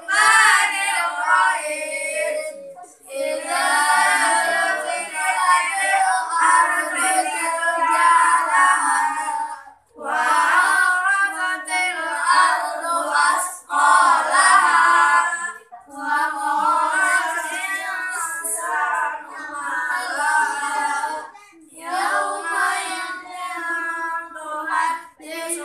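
A group of boys singing together in a melodic chant, voices holding and bending long notes, with short pauses between phrases every few seconds.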